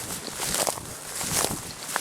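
Footsteps of a hunter walking through field cover, with a step about every two-thirds of a second.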